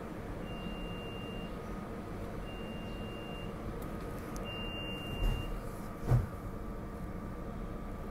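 Steady hum and rumble inside a SEPTA Regional Rail car standing at a station platform. Three high electronic beeps, each about a second long, come two seconds apart. Then two dull thumps come about five and six seconds in.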